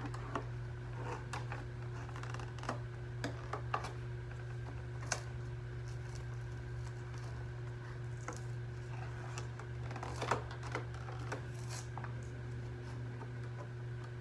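Irregular clicks and crinkles of an action figure's plastic-and-cardboard blister package being worked open by hand, over a steady low hum.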